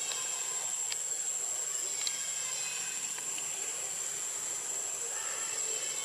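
Steady high-pitched insect drone that holds without a break, with a few faint ticks.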